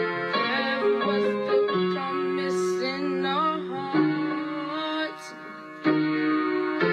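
Solo piano playing: sustained chords struck about once a second, with a quicker melodic run in the middle and a brief softer moment about five seconds in before the next chord.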